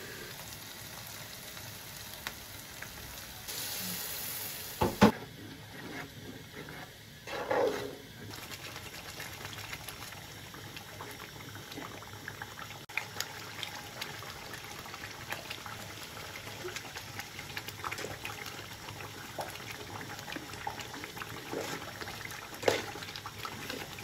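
Thick tomato and pepper stew simmering and bubbling in an aluminium pot, with a spoon stirring through it and clicking against the pot. A single sharp knock comes about five seconds in.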